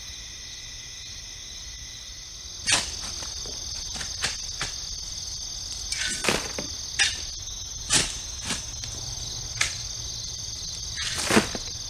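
Steady night chorus of crickets. From about three seconds in, it is broken by irregular crunches and knocks, roughly one a second, from work in loose gravel.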